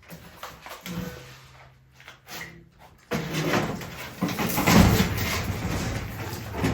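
A heavy welding gas cylinder being manoeuvred onto a metal welding cart: a few knocks at first, then, from about three seconds in, louder continuous scraping and clunking of metal on metal.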